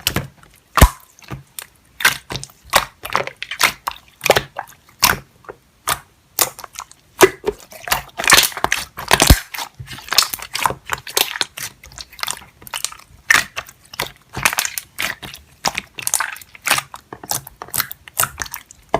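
Slime being squished and pressed by hand, giving a steady run of sharp crackles and pops, about two or three a second.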